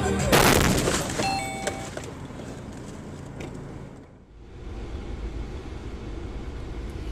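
Car collision picked up by a dashcam: a loud sudden crash of crumpling metal and flying debris just after the start, fading into road and engine rumble. About four seconds in the sound dips briefly and gives way to a steady traffic rumble from another dashcam.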